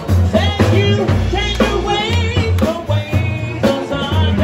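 Live band music with female vocals: a lead singer over backing singers, with electric guitar, drums and a strong low bass line. The held sung notes waver with vibrato.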